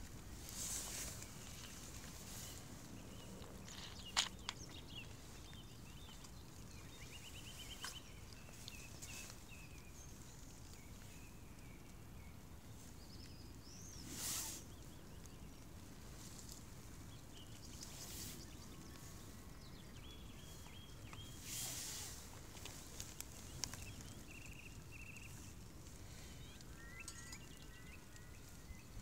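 Quiet outdoor ambience: faint birdsong comes and goes over a steady low background rumble, with a sharp click about four seconds in and a few brief rushes of noise.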